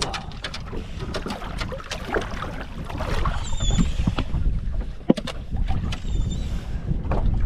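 Wind buffeting the microphone aboard a small boat, with several sharp knocks (the loudest about five seconds in) and two faint short high chirps.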